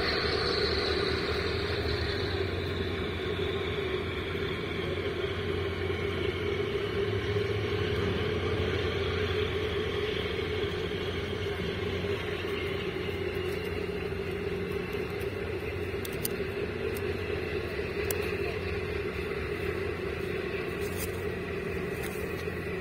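Steady low mechanical drone with a constant hum from the machinery of a 400-metre container ship passing close by, easing off slightly as it goes.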